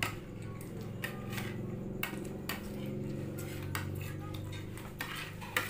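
Metal spoons and forks clinking and scraping against plastic plates in scattered clicks, over a steady low hum.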